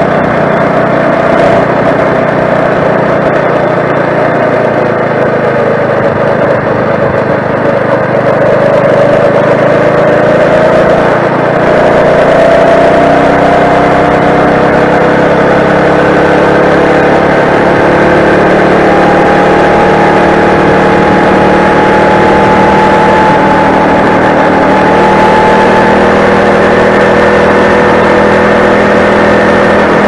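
Four-stroke motorized bicycle engine running while the bike is ridden, its pitch sagging slightly at first and then climbing slowly through the second half as the bike gathers speed.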